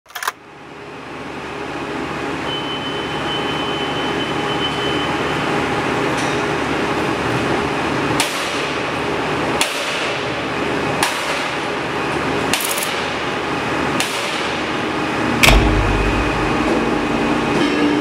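Construction-site din fading in: a steady mechanical hum with sharp metallic impacts about every second and a half. About fifteen seconds in, a heavy low rumble joins.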